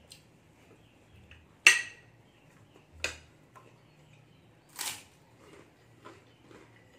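Metal spoon clinking and scraping against a ceramic plate while eating: a few sharp clinks, the loudest with a short ring about two seconds in, and fainter taps toward the end.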